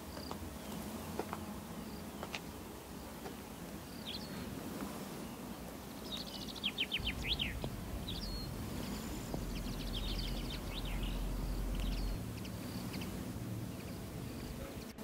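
Birds chirping now and then in the open air, with a quick run of rapid notes about seven seconds in and more chirping a few seconds later. A low rumble sits underneath from about seven to twelve seconds.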